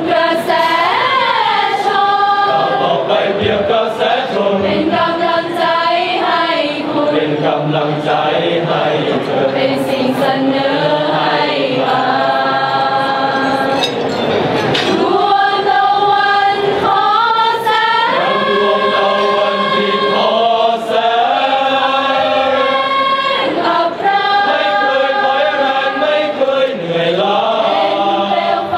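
Choir of student police officers singing in harmony, holding long notes phrase after phrase, with a short breath break in the middle.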